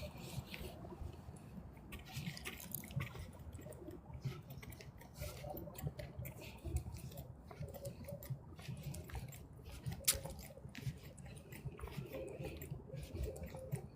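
Lake water lapping and dripping at the shore, with irregular small splashes and clicks over a low rumble.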